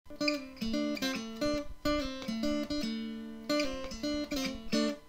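Background music: an acoustic guitar playing chords.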